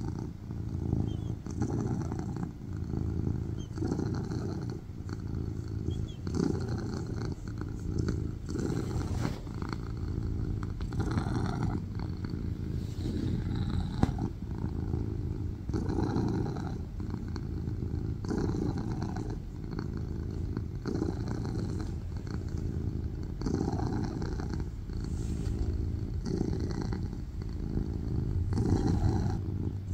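A tuxedo cat purring loudly while being scratched on the head and cheek, a steady low buzz that swells and eases with each breath about every two and a half seconds.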